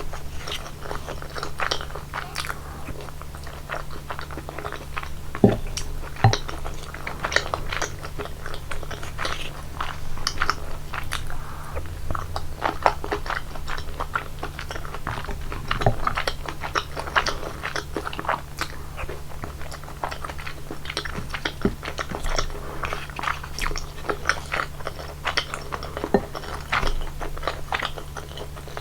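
Close-miked chewing of thick, creamy rosé tteokbokki: wet, sticky smacks and squelches of chewy rice cakes in sauce, a continuous run of small irregular clicks with a few louder pops, over a steady low hum.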